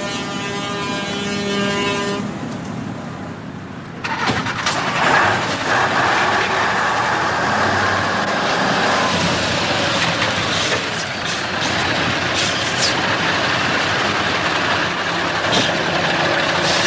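Heavy truck's diesel engine running hard. A steady pitched drone for the first two seconds, then from about four seconds in a loud, rough engine noise with scattered knocks.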